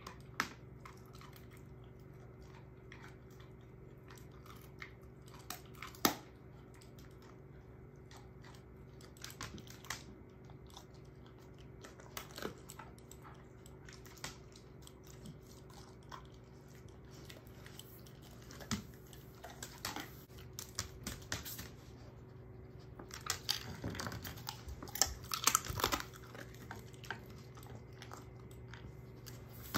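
A German shorthaired pointer chewing and crunching the leftover bits of a dehydrated pork neck bone, with scattered sharp crunches and clicks that come more thickly about three-quarters of the way through.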